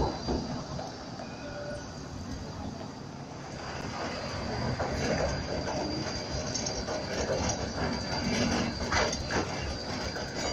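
Melbourne E-class low-floor trams rolling past along a city street, a steady running rumble under a thin steady high whine, with a few short clicks in the second half.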